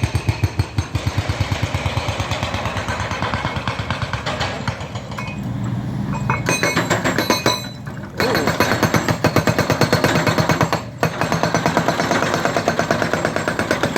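Hydraulic breaker hammering rapidly and steadily at about ten blows a second, breaking up concrete during demolition. It stops briefly twice in the second half.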